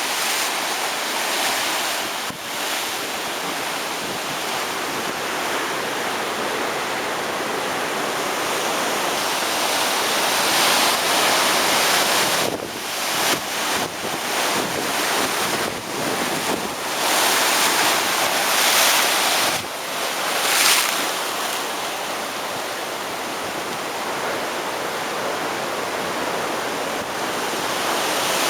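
Rough ocean surf breaking on a beach: a continuous wash of waves that swells louder now and then, with wind buffeting the microphone.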